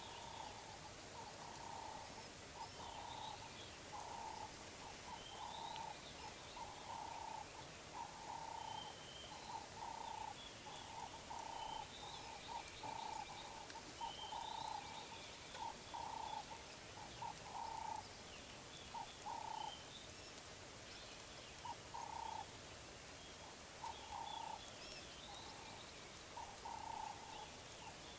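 Faint early-morning bush ambience: a short mid-pitched call note repeated about one to two times a second, pausing briefly about two-thirds through, with scattered higher bird chirps over it.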